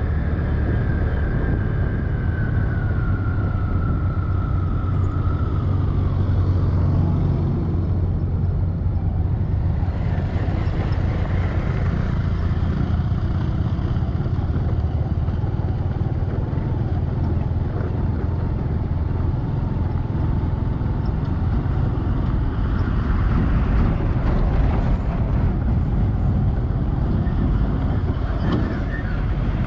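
Road vehicle running: a steady low engine drone, with a whine that slides down in pitch over the first six seconds and a broader rushing noise that joins about ten seconds in.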